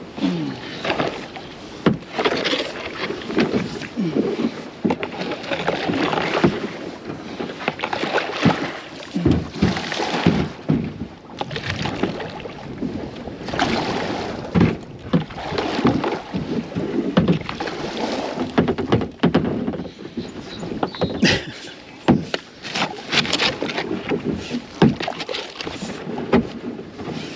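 Kayak paddle dipping into the river in repeated strokes, splashing and swishing every two to four seconds, with water gurgling between strokes.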